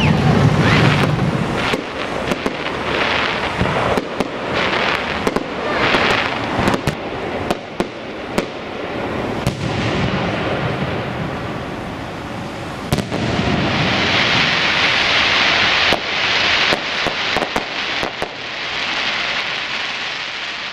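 Aerial fireworks display: repeated sharp bangs of shells bursting overhead, with longer stretches of dense crackling noise in the second half.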